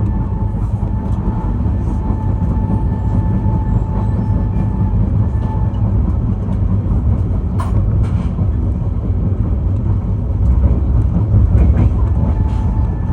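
Shatabdi Express passenger train running past close by: a heavy, steady rumble of wheels and coaches on the track, with a faint steady tone over the first several seconds and a sharp click about seven and a half seconds in.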